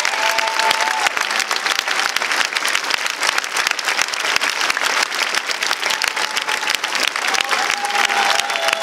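Large audience applauding steadily, with a few sustained, sliding whistles from the crowd for about the first second and again near the end.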